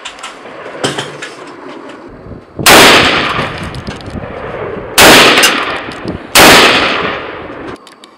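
Three rifle shots from a scoped bullpup rifle, each a sharp crack that dies away in a long echo. The first two are a little over two seconds apart and the third follows about a second and a half later.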